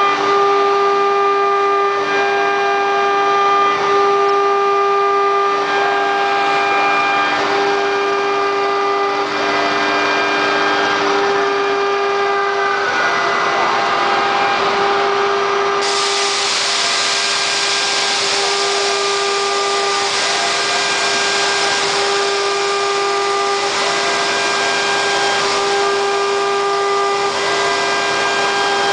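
QS6090 CNC router running: the spindle gives a steady high whine, with other tones shifting as the machine moves. About halfway through, a loud hissing rush joins it and carries on, as the bit cuts into the material.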